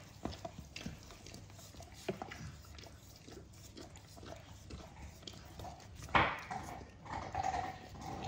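German Shorthaired Pointer licking a frozen treat in a stainless steel bowl: a run of quick wet laps and small tongue clicks against the metal, with one loud knock about six seconds in.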